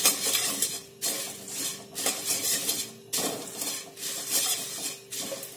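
Puffed rice being dry-roasted in a kadai and stirred with a spatula: the grains rustle and the spatula scrapes the pan in repeated strokes about once a second. The roasting drives out moisture to make the puffed rice crisp.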